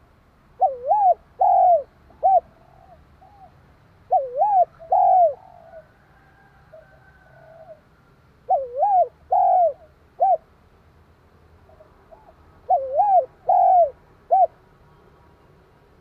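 Spotted dove cooing: four phrases about four seconds apart, each a run of three or four short rising-and-falling coo notes.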